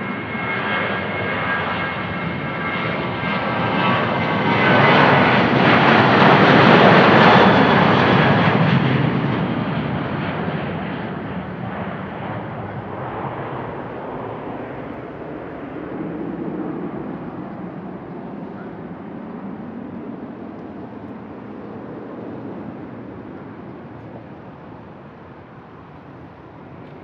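Boeing 737-800's CFM56-7B turbofan engines at takeoff thrust: a high whining fan tone over rushing jet noise that swells to its loudest as the airliner passes, about six seconds in, then fades steadily as it climbs away.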